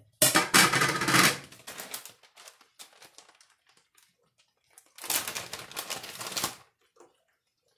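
Plastic bag of shredded Italian cheese crinkling as it is handled, in two bursts: one lasting about a second at the start, another about five seconds in.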